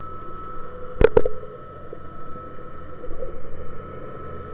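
Underwater recording of a boat's engine hum carried through the water: a steady drone with two constant tones, muffled by the camera housing. A sharp knock comes about a second in.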